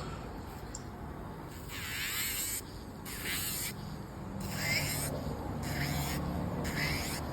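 Electric nail drill (e-file) sanding acrylic nails in short passes: about five bursts of high grinding hiss, with the drill's low motor hum underneath.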